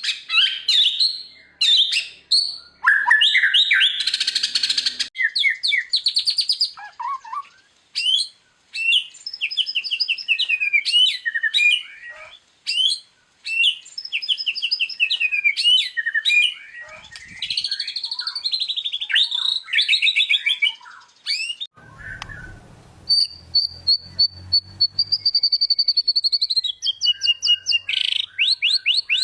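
White-rumped shama (murai batu) singing a long, varied song of fast whistled phrases, trills and rattles, with a long held whistle about three quarters of the way through and a rapid run of repeated notes near the end.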